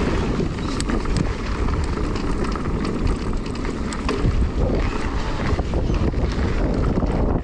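Mountain bike tyres rolling fast over a dirt and leaf-litter trail, with scattered clicks and rattles from the bike, under heavy wind noise on the microphone.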